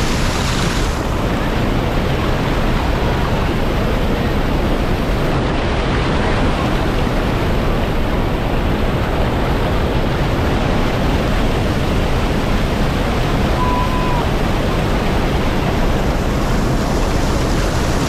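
Loud, steady rush of a river waterfall pouring down, a dense noise heavy in the low end.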